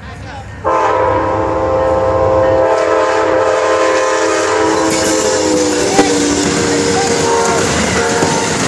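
Amtrak locomotive air horn sounding one long, loud chord that starts suddenly about a second in and holds, its pitch dropping slightly about halfway through. The noise of the passing train grows underneath in the second half.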